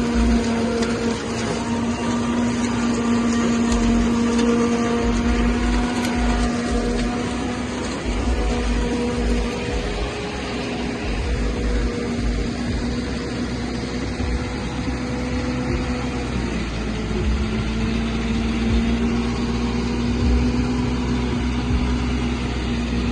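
Silage harvester running with a steady mechanical hum, holding an even pitch, over an uneven low rumble.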